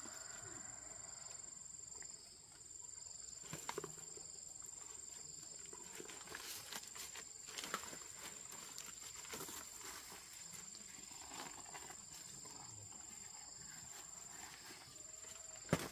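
Faint animal sounds over a steady high-pitched tone, broken by a few sharp knocks.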